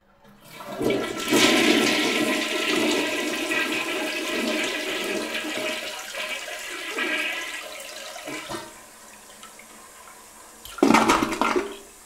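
Toilet flushing: a rush of water starts about half a second in, is loudest in the first couple of seconds and slowly dies away into a low hiss, then a short, loud second rush of water lasting about a second comes near the end.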